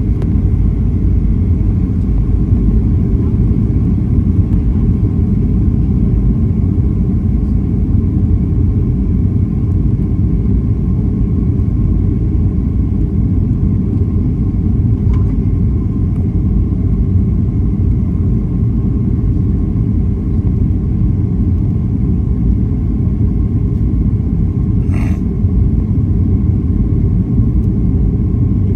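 Steady low rumble of Boeing 737 cabin noise in flight on approach: engine and airflow noise heard from inside the passenger cabin, with a faint steady whine above it. A single short click about 25 seconds in.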